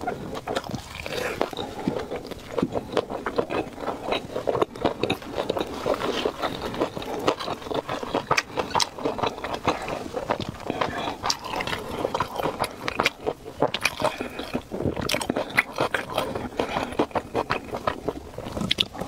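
Close-miked eating: a person biting into and chewing a skewered, chili-powder-dusted snack, a dense, continuous run of small mouth clicks and smacks.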